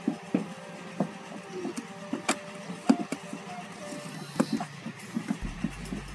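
Background music with held plucked-string tones, over irregular sharp knocks and thuds; a low hum comes in near the end.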